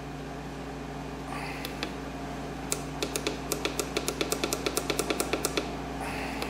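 Rapid run of small, sharp clicks, about eight a second for roughly three seconds, from the lathe's servo motor controller as its speed setting is raised. A steady low electrical hum runs underneath.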